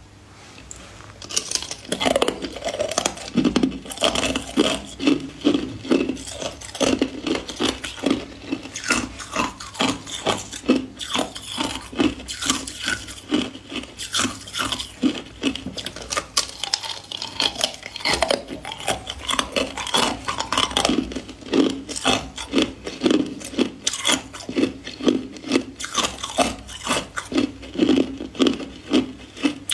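Hard ice cubes being bitten and chewed close to the microphone: loud crunching and cracking in a steady chewing rhythm, about two to three bites a second.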